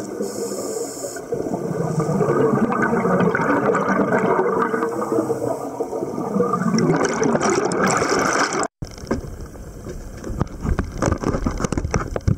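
Scuba exhaust bubbles gurgling and churning underwater past the camera for about eight and a half seconds. Then a sudden break and a change to wind buffeting the camera and water splashing at the surface.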